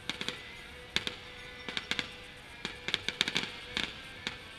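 Fireworks going off in sharp, irregular cracks and pops, bunching into rapid clusters of several a second, with music playing underneath.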